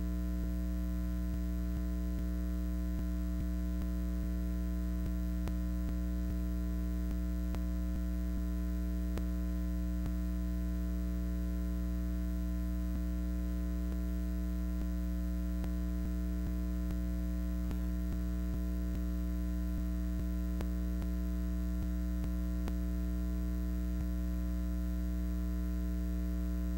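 Steady electrical mains hum, low and buzzy with a ladder of overtones, with faint scattered ticks; no sound from the field comes through.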